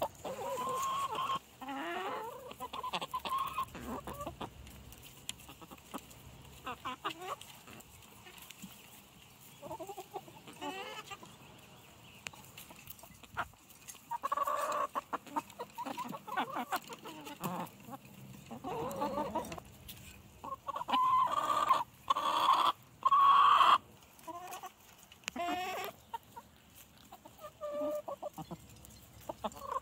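Backyard hens clucking and calling on and off, with a cluster of louder calls about three-quarters of the way through.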